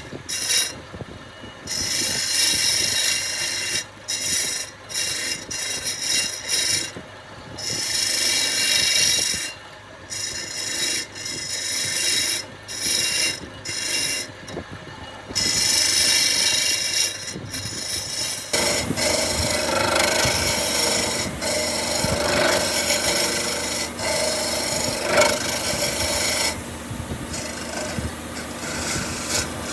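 Wood being abraded by hand in short, irregular scraping strokes. About eighteen seconds in it turns into a steadier, denser rubbing.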